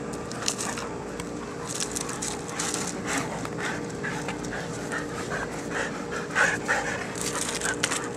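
Springer spaniels panting rapidly and hard from the exertion of play, in quick breathy puffs that start about two seconds in.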